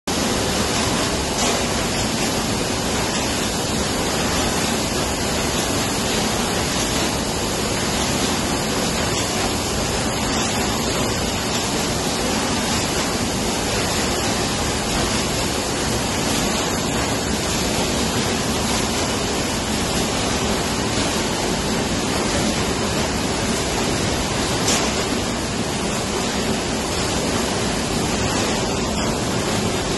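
Steady industrial noise of a running Crabtree F1 sheet coating line and its tunnel oven: a dense, even rush with no clear rhythm, and one brief tick about three-quarters of the way through.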